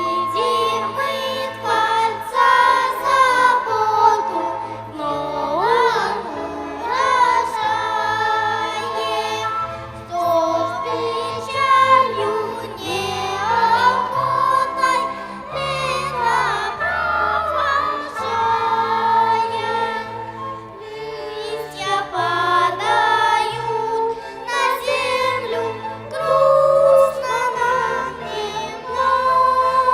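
A church choir singing a hymn, accompanied by a violin ensemble playing held low notes under the voices.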